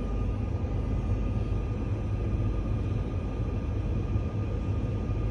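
Steady low rumble with a faint steady whine over it: the cockpit background noise of a Boeing 747-400 flight simulator sitting on the ground.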